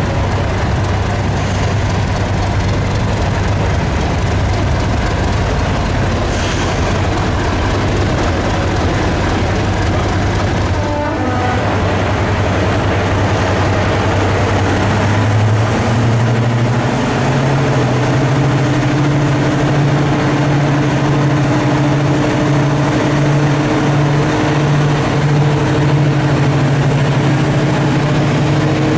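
Heavy diesel train engine running with a loud, steady low drone. About halfway through, its note steps up to a higher pitch and holds there as the engine powers up.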